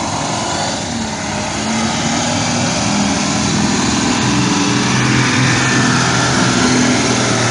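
A motor vehicle's engine running steadily, with a low hum that grows a little louder partway through.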